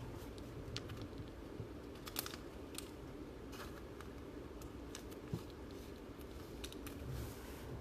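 Faint, scattered clicks and light rustles of trading cards being handled and slid through a pack, over a low steady hum.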